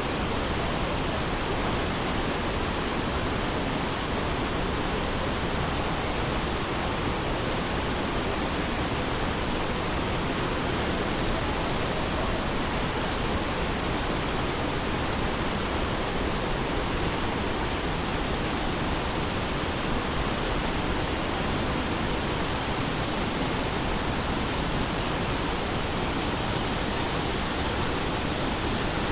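Waterfall pouring, a steady rushing of falling water that holds at one level throughout.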